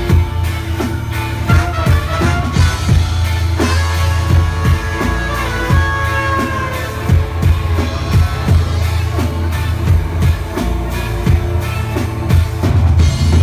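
Live band playing an upbeat song: trumpet and trombone play a sustained horn line over bass guitar, drum kit and keyboard, with a steady beat.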